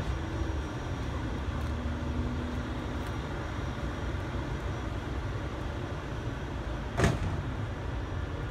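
Steady low rumble of road traffic, with one sharp knock about seven seconds in.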